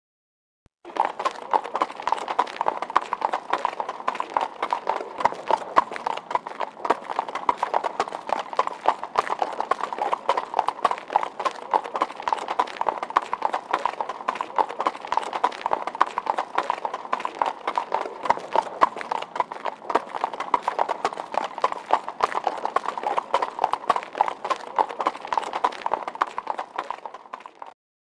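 Horses' hooves clip-clopping at a slow ride, a dense, irregular run of hoof strikes that starts about a second in and keeps a steady level until it stops just before the end.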